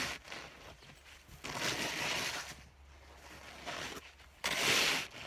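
Snow being pushed off a roof with a long-handled snow brush: about three swishing strokes of snow sliding and scraping, a second or two apart.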